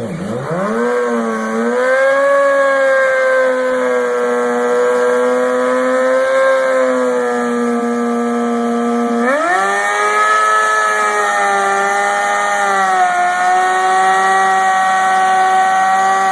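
Motorcycle engine revved and held at steady high rpm, a sustained engine note with a free-revving exhaust. It climbs quickly at first, holds steady, then steps up to a higher, steadier pitch about nine seconds in.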